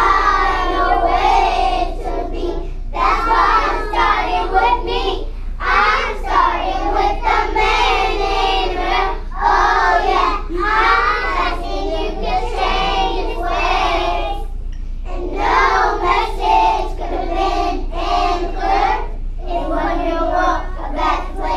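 A group of pre-kindergarten children singing a song together, in phrases of a few seconds with short breathing gaps between them.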